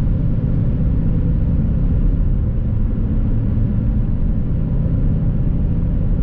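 A van's engine and road noise heard from inside the cab while it drives along a highway: a steady low rumble.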